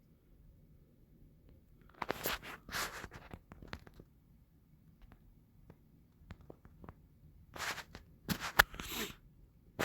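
Short scratchy rustling noises with a few small clicks, in a cluster about two seconds in and louder again near the end.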